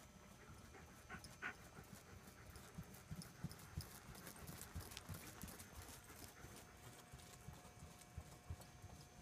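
Faint hoofbeats of a ridden pony moving on soft indoor arena footing, with a few sharper clicks.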